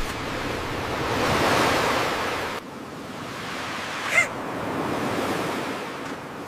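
Ocean surf washing in two swells, the first breaking off abruptly partway through, with a brief high cry about four seconds in.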